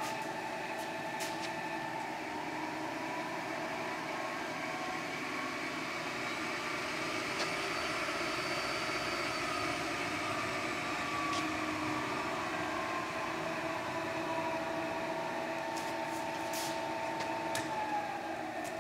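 Milling machine running, its whine slowly rising in pitch over the first half and falling back over the second half as the variable spindle speed is turned up and then down, with a few faint clicks.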